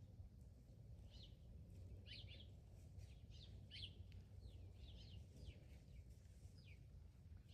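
Faint bird chirps: short, falling chirps repeating every half second to a second, over a low steady rumble of background noise.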